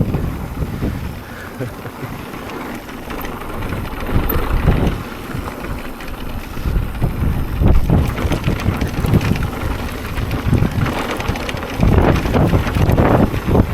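Wind buffeting the microphone in gusts, a low uneven rumble with rushing noise. It is strongest near the end.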